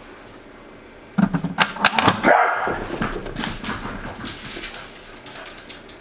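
Corgi barking excitedly a few times, starting about a second in, followed by a quick patter of running footsteps that fades away.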